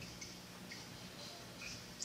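Quiet room tone: a faint steady low hum with a few soft ticks.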